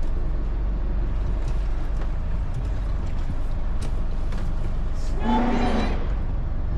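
A motor cruiser's Volvo Penta engine running steadily under way, a continuous low drone, with a short voice-like sound about five seconds in.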